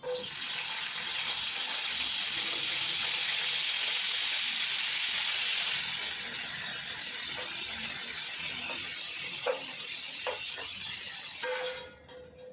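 Food sizzling in hot oil in a frying pan. It starts suddenly and is loudest for the first six seconds, then settles to a lower sizzle with a few sharp pops.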